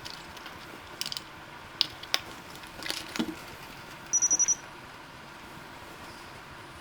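Small clicks and handling noises as a replacement capacitor is fitted onto an AC blower motor's control board, with a short, high, rapidly pulsed beep about four seconds in.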